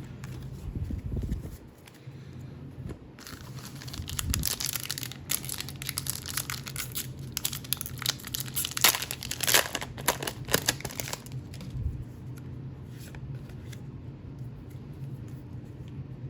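A trading-card booster pack's wrapper being torn open and crinkled, from about three seconds in to about eleven seconds in and loudest near the end of that stretch, then faint handling rustles.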